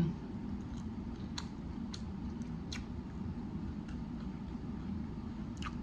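A person chewing a bite of grinder sandwich: a few faint, short mouth clicks over a steady low hum.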